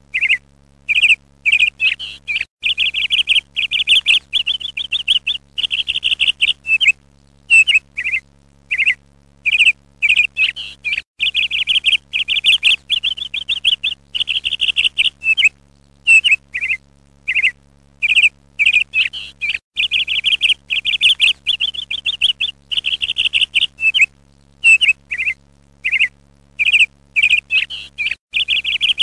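Songbird chirping and trilling in rapid runs of short, high notes, with brief pauses between runs, over a faint steady low hum.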